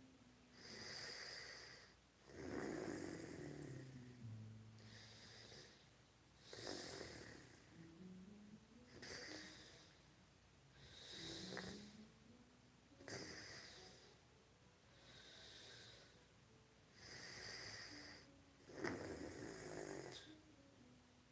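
A woman snoring in her sleep, with raspy breaths about every two seconds. Some breaths carry a low, wavering drone.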